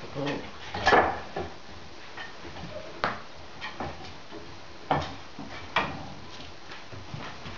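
Scattered knocks and clicks of puppies' paws and claws on a low wooden slatted bridge and floor, the loudest about a second in.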